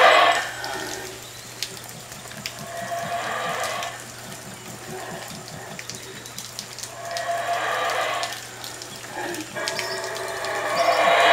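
Guatemalan black howler monkey (Alouatta pigra) howling in repeated roars that swell and fade about every three to four seconds, four in all. The loudest are at the start and near the end.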